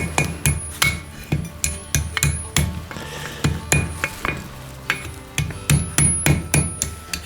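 Hand hammer striking a hot quarter-inch mild steel bar over an anvil horn to bend it into a curve. A steady run of ringing blows comes about three a second, with a brief lull a few seconds in.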